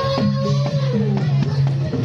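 Reog gamelan music: steady drum strokes and alternating low gong tones under a held melody note that slides down about halfway through.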